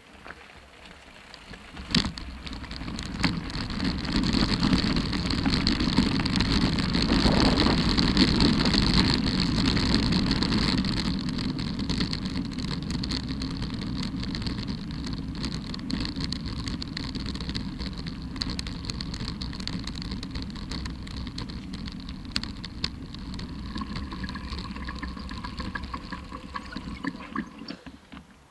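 Mountain bike tyres rolling over a wet gravel fire road, with a steady crunching rattle of stones and wind rumble on the camera microphone. A thin high squeal comes in near the end, and the noise dies away as the bikes slow to a stop.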